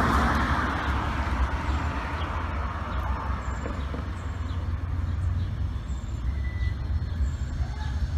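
Steady rumble of road traffic, with a passing vehicle fading out over the first few seconds.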